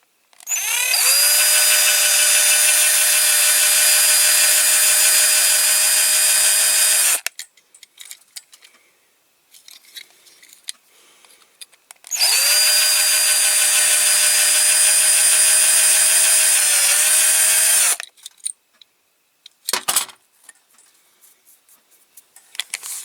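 Small electric drill with a small bit drilling out the rivets of a diecast toy car's base, run twice for about six to seven seconds each time. Each run spins up to a steady high whine and winds down. Light clicks and scrapes come between the runs.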